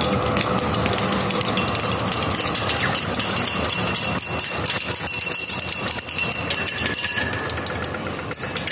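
Audio-tactile pedestrian crossing signal ticking rapidly, a fast, even run of clicks, over city street noise.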